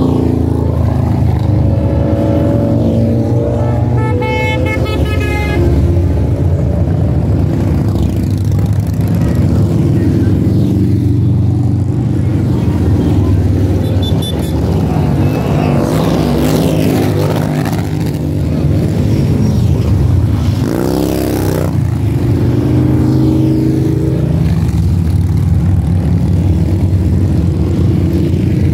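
Motorcycle engines rumbling steadily as a string of motorcycles rides past one after another. A brief high-pitched tone comes about four seconds in.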